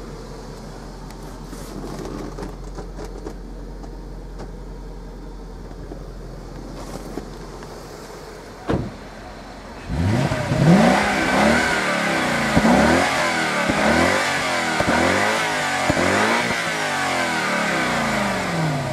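1997 Jaguar XK8's 4.0-litre V8, heard from behind at the exhaust, being blipped over and over: from about halfway in there are sharp revs at roughly one a second, each rising and falling back. Before that the engine runs more quietly and steadily, with one thump near the middle.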